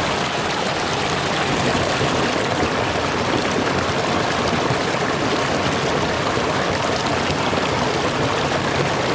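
Steady rush of a fast-flowing mountain stream, an even wash of water noise with no change in level.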